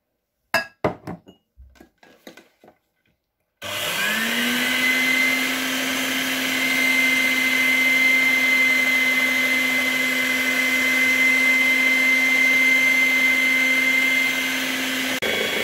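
A few light knocks and clicks as flour is tipped from a glass bowl into the batter, then a Bifinett electric hand mixer switches on about three and a half seconds in. Its motor spins up quickly and runs at a steady whine, beaters mixing flour into cake batter in a glass bowl.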